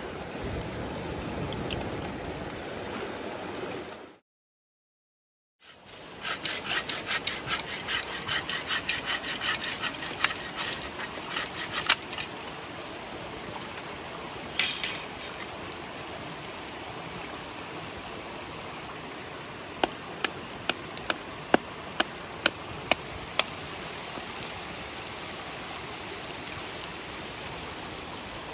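Mountain stream running steadily. After a brief dropout, a folding saw cuts through a branch in a run of quick back-and-forth strokes for several seconds, with one more stroke a little later. Near the middle comes a rapid series of about eight sharp cracks.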